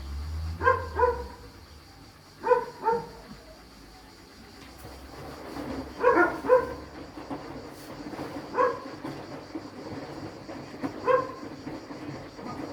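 A dog barking, about eight short barks in pairs and a quick triple, over the low, steady running of a washing machine.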